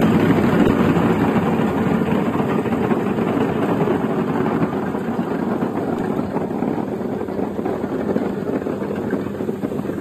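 Golf ball washing machine running with a steady motor hum, while a stream of golf balls clatters out of its outlet into a plastic crate. The clatter slowly gets quieter.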